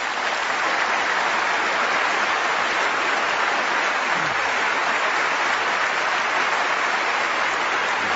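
A large audience applauding steadily, a dense, even clapping that holds at the same level throughout.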